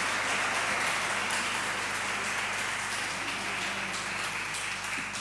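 Audience applauding: a dense patter of clapping that slowly fades.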